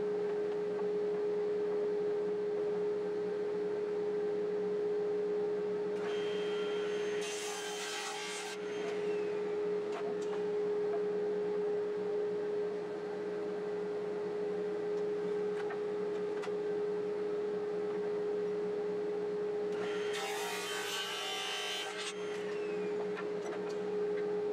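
Benchtop table saw running with a steady whine, its blade crosscutting a pine board twice, about six seconds in and again about twenty seconds in.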